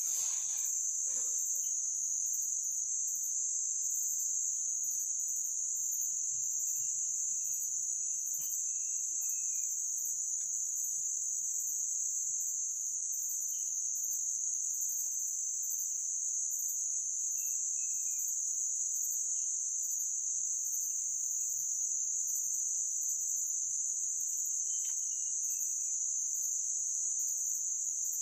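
Insects drone steadily at a high pitch without a break. Faint short chirps rise and fall a few times.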